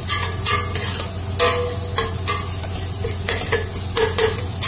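A metal spoon stirring and scraping masala frying in ghee in a stainless steel pot: sharp clinks about two or three times a second, some ringing briefly off the pot, over a steady sizzle.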